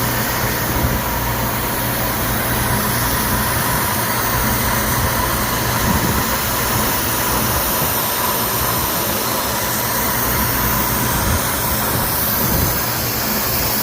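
CNC milling machine running steadily: an even machine noise with a faint high spindle whine held throughout.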